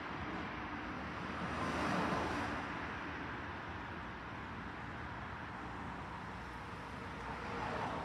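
Road traffic noise: a steady rush with one vehicle passing loudest about two seconds in and another swelling near the end.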